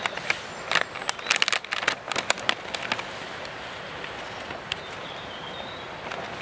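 Crinkling and crackling of a food wrapper being handled, a dense run of sharp crackles in the first two and a half seconds, then a few scattered clicks over a steady background hiss.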